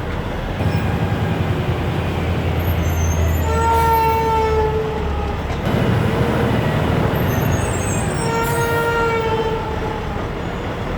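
Two long, steady horn blasts about five seconds apart over a continuous low rumble.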